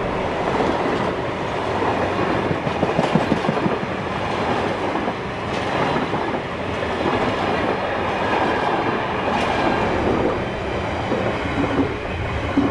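Container freight train passing close by: a steady rumble and clatter of wagon wheels on the rails, with a few sharper knocks along the way. The last wagon goes past at the very end and the noise starts to fall away.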